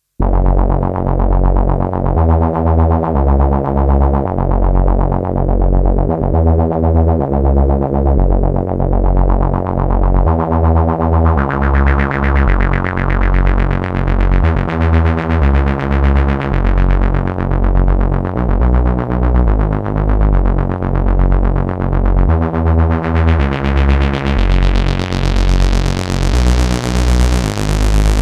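Dreadbox Erebus 3 analog synthesizer playing a repeating low bass pattern of pitched notes. Its filter opens so the tone turns brighter about halfway through, then again over the last few seconds.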